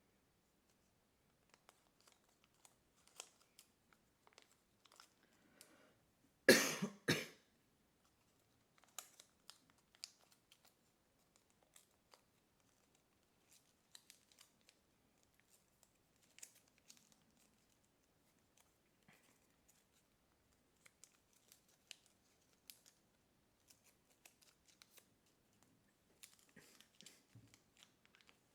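Kami origami paper being folded and creased by hand: faint, scattered small clicks and rustles. About six and a half seconds in comes one loud, short double burst of noise.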